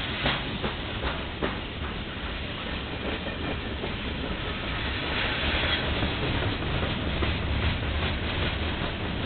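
Freight cars rolling past on steel wheels: a steady rumble with clicks as the wheels cross rail joints, a few sharper clicks in the first second and a half, and a brief hiss about five seconds in.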